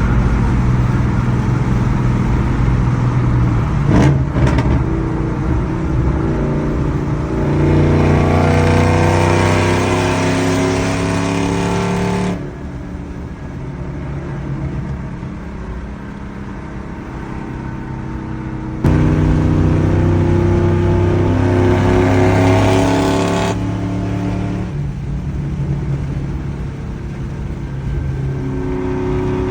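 2010 Ford Mustang GT's 4.6-litre V8 engine and exhaust, loud: a quick rev blip about four seconds in, then revs held high and climbing slowly before dropping suddenly. After a quieter stretch the engine comes back up abruptly, holds high revs, then falls away.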